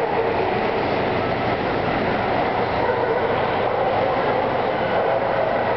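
Loud, steady din of a large exhibition hall, with no separate event standing out.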